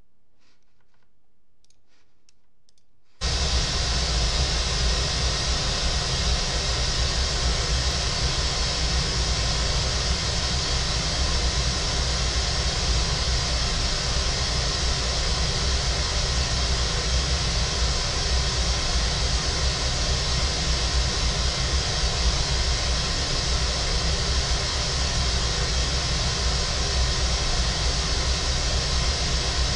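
Pink noise test signal for a frequency-response measurement: a steady even hiss that switches on abruptly about three seconds in, after a few faint clicks.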